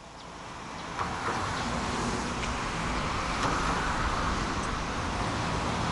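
Steady road-vehicle noise, a continuous rush of a car on the road, fading in over the first second.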